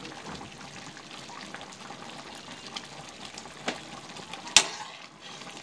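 Thickened minced-pork sauce simmering in a pan over a gas flame while a metal ladle spoons it onto eggplant in a ceramic bowl, with a steady low sizzle and pour. A few light clinks, and one sharp clink of the ladle about four and a half seconds in.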